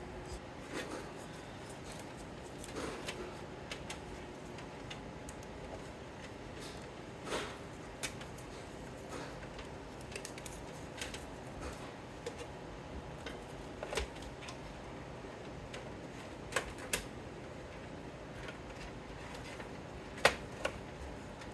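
Scattered small clicks and taps of hands handling PC parts and cables during a build, over a steady faint background, with one sharper click near the end.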